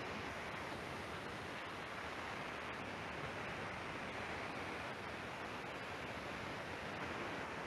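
Steady hiss of background noise, even and unchanging, with no speech.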